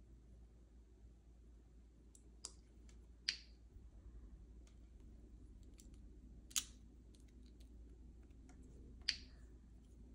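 Plastic LEGO pieces clicking as they are fitted and pressed together: a few sharp separate clicks, the loudest about three seconds in, near the middle and near the end, with faint plastic ticks between.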